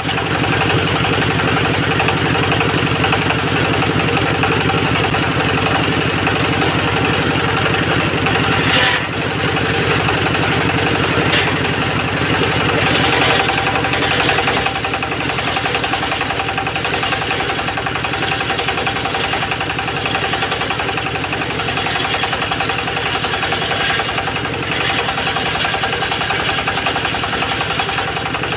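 Homemade engine-driven circular sawmill running steadily while sawing teak, with a steady engine rumble and a constant whine.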